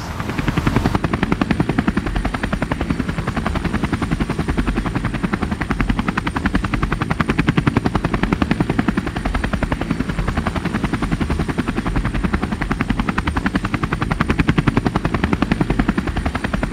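Helicopter rotor beating steadily and rapidly, heard from on board the helicopter.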